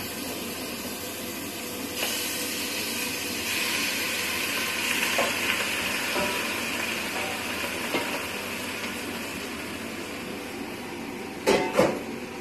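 Raw beef chunks sizzling as they go into hot oil with browned onions and garlic in a stainless steel pot. The hiss swells about two seconds in and stays strong for several seconds, with a few light knocks of utensils. Near the end come two loud knocks.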